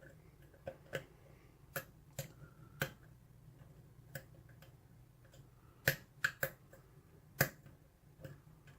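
Small irregular clicks and taps of a lock pick working the pin stacks of a pin-tumbler lock with a Yale-style keyway during single-pin picking: the little clicks of pins setting under tension. A cluster of louder clicks comes about six seconds in, and another sharp one near seven and a half seconds.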